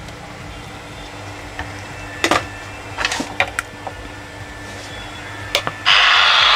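A low hum with a few sharp clicks, then about six seconds in a Philips 2-in-1 radio-cassette recorder's speaker suddenly comes alive with a loud, steady rush of radio static. The set is producing sound again now that a jumper completes its negative-supply circuit.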